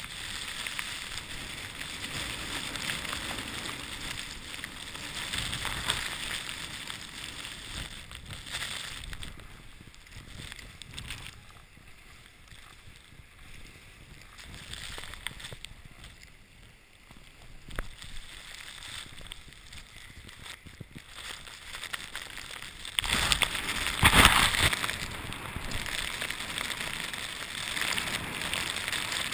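Snowboard sliding and hissing through deep powder snow, with wind rushing over the microphone. The noise swells and fades with the riding, dips in the middle and surges loudest about three quarters of the way through.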